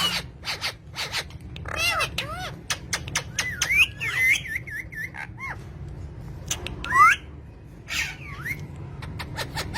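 Pet parrots calling: a string of short chirps and squawks, with a quick rising whistle about seven seconds in, among scattered sharp clicks.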